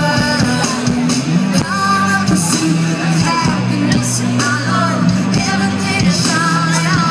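Live rock band performing: a woman singing long held lines over guitar, bass and a steady drum beat.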